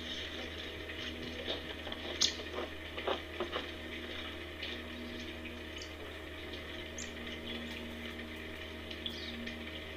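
Outdoor webcam microphone ambience: a steady low hum under a faint hiss, with a few soft clicks and knocks, the sharpest about two seconds in.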